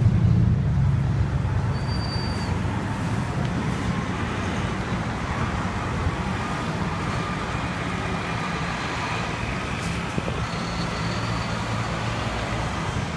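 Street traffic passing close by: a tractor-trailer and cars driving past, engines running low under steady road noise, loudest in the first second. Two brief high squeaks sound about 2 seconds in and near the end.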